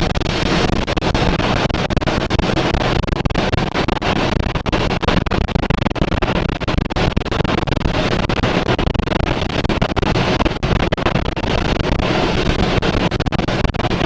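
Loud, continuous roar of violent tornado wind buffeting the microphone, with rapid crackling and rattling throughout.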